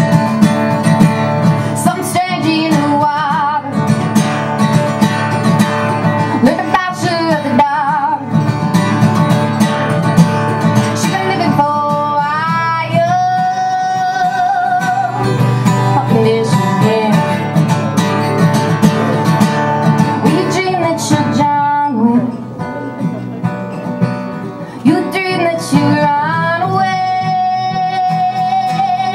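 A woman singing a folk song while strumming an acoustic guitar, with held sung notes over steady strumming. The sound drops back briefly about two-thirds of the way through.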